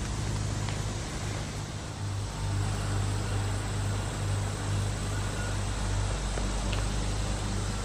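A low, steady hum under a hiss, with two faint clicks.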